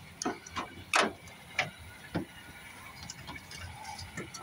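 A string of sharp clicks and knocks from hoses, hose clamps and air-intake parts being handled in a car's engine bay. The loudest comes about a second in, and the sounds thin out to faint ticks after about two seconds.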